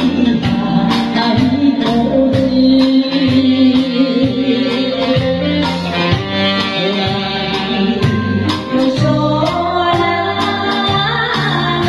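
A woman singing a Japanese popular song into a microphone, accompanied by a live band with electric guitar and keyboard over a steady beat.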